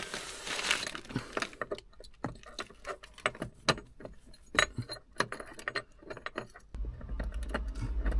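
Irregular small metallic clicks and clinks of a bolt and washers being handled and fitted into a clutch repair bracket by hand. A low rumble comes in near the end.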